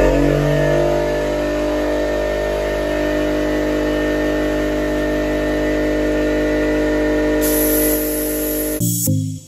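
Air compressor running steadily with the hiss of a Marshalltown Sharpshooter hopper gun spraying joint compound texture at about 45 PSI. The sound cuts off abruptly near the end.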